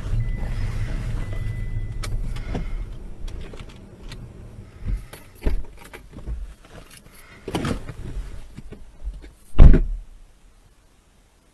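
Road and engine rumble inside a car, fading as the car slows to a stop, then a run of clicks and knocks from inside the car, ending about nine and a half seconds in with a loud thud like a car door being shut.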